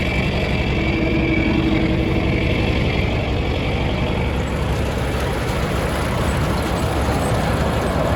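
Engine running steadily, with a faint high whine over it in the first few seconds.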